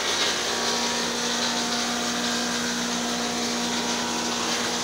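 Steady machine whirr with a constant hum, an electric motor running without change, such as a woodworking machine in a timber workshop.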